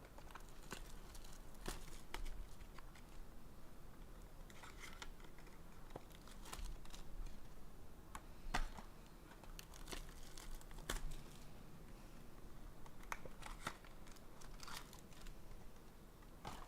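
Faint crinkling and tearing of trading card pack wrappers, with scattered light clicks and taps as packs and cards of a 2022 Bowman Sterling box are opened and handled.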